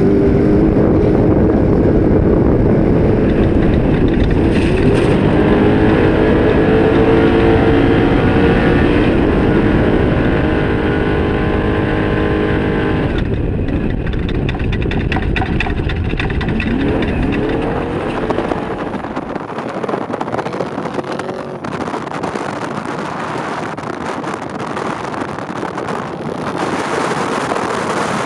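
Trophy truck's engine running hard, heard from inside the cab with wind and dirt noise around it. For about the first half its pitch holds high and wavers. It then gives way to a rougher, noisier rush that eases slightly in level.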